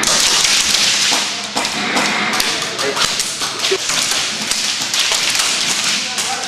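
Airsoft rifles firing rapid strings of shots, a dense clatter of sharp cracks, with taps and thuds of BBs striking the plywood walls.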